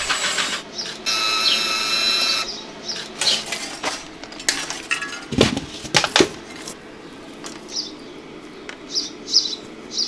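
Washing-machine motor on a homemade electric bike spinning briefly with a steady high whine, run from a drill's speed-control trigger used as a throttle; then clinks and knocks of metal parts being handled, the loudest about five and a half seconds in, and a few faint chirps near the end.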